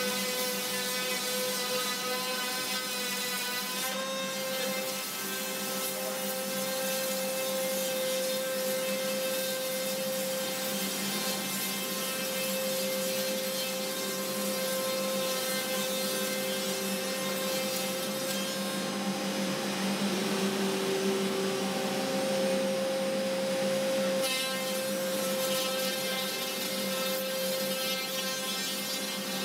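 CNC router spindle spinning an Onsrud two-insert surfacing cutter at about 16,000 RPM while it skims the spoilboard flat: a steady high whine over the hiss of the cutter shaving wood.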